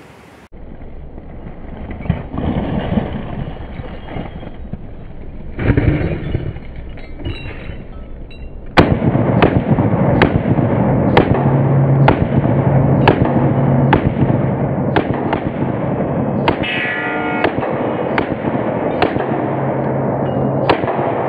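Rapid 9mm pistol fire from two Glock 43 single-stack pistols, fired together, one in each hand, starting about nine seconds in: many sharp shots about every half second, with steel targets ringing between them. Before the shooting there are several seconds of louder noise with a couple of dull thumps.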